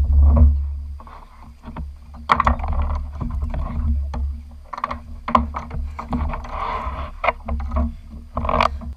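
Irregular knocks, bumps and rustling as a freshly landed Chinook salmon and a landing net are handled aboard a fishing kayak, over a steady low rumble.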